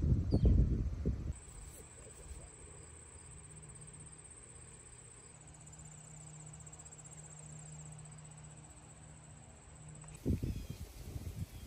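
Insects trilling: a steady, high-pitched, finely pulsing trill that starts abruptly about a second in and cuts off abruptly near the end. Low wind-like rumbling on the microphone comes at the start and again near the end.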